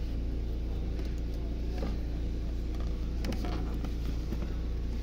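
Faint plastic clicks and rubbing as a dashboard speaker's wiring connector is worked loose by hand, a few sharp ticks about two and three and a half seconds in, over a steady low hum.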